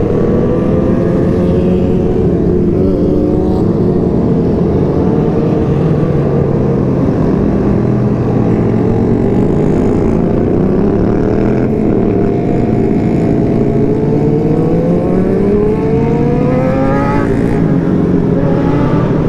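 Many sportbike engines running together in a large group ride, heard from on board a motorcycle. Several engine notes overlap and rise and fall as riders throttle on and off, with long rising revs in the second half.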